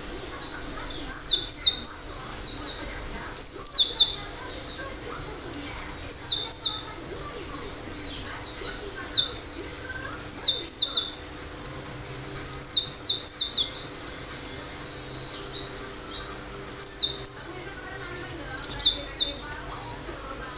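Cinereous tit (gelatik batu) singing: short bursts of sharp, quickly falling whistled notes, one phrase every two or three seconds.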